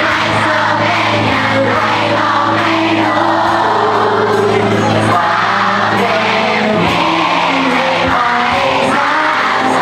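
Live rock band: a young singer sings into a microphone over electric guitar, bass guitar and drums, amplified through stage speakers.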